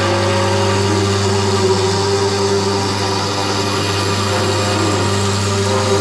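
500 W ER11 spindle motor on a desktop CNC router, running steadily while a 3 mm bit mills a pattern into a wood board: a steady hum with cutting noise over it.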